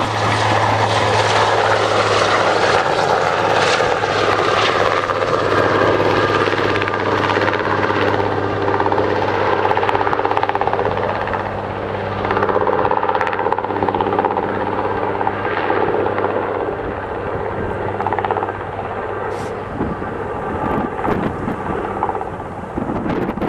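Twin-turbine Aérospatiale AS 332 Super Puma helicopter flying away after take-off: steady rotor and turbine noise with a low hum, growing a little fainter in the second half as it moves off.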